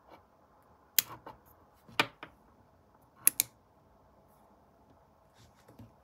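Small plastic rocker switches clicking as they are flipped and handled. There are three sharp clicks about a second apart, each followed by a softer one; this is the switching of the battery cells from parallel to series.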